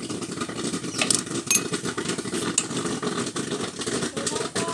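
Electric hand drill running, boring a hole through the steel frame of a cotton candy machine, with a steady rough grinding and scattered clicks.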